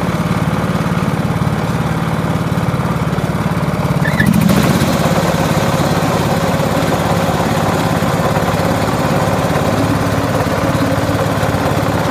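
Ride-on lawn mower's petrol engine running steadily and loudly. About four and a half seconds in the sound jumps and turns fuller and hissier, and it holds there as the mower sets off across the grass.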